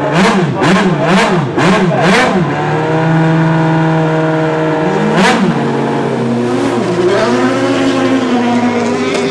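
Single-seater race car's engine blipped five times in quick succession, about two a second, then held at a steady fast idle, with one more sharp rev about five seconds in.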